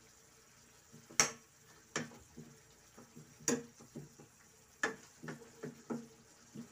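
A metal utensil clicking and scraping against a nonstick frying pan while stirring and breaking up sardines simmering in sauce. The clicks come every second or so, the strongest about a second in and again past the middle, then quicker lighter taps near the end, over a faint sizzle.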